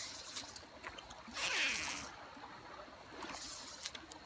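A fishing cast with a spinning rod: one brief swish about a second and a half in, over a faint trickle of shallow creek water.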